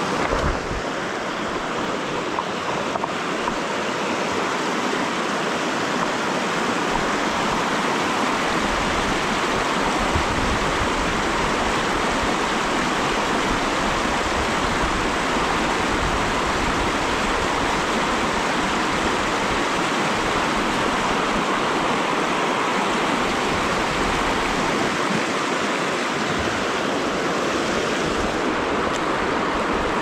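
River water rushing steadily over rocks, an even, unbroken rush.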